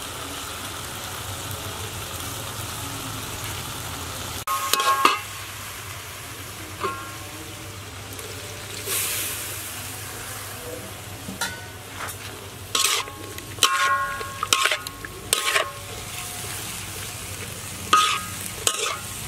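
Pork kidney slices sizzling in a wok, a steady hiss, then a metal spatula clanking and scraping against the wok in short clusters of ringing strikes as pickled mustard greens are stirred through. A brief louder rush of sizzling comes near the middle.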